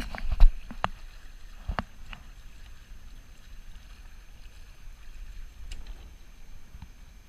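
Dart 18 catamaran under sail: a steady low rush of water and wind. A few sharp knocks on the boat come in the first two seconds, the loudest about half a second in.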